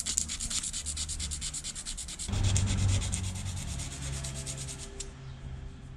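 Sandpaper rubbed by hand in quick, even back-and-forth strokes over a scrape in the painted cowling of a Yamaha outboard motor, smoothing the paint before touch-up. The sanding stops about five seconds in. A low hum joins about two seconds in.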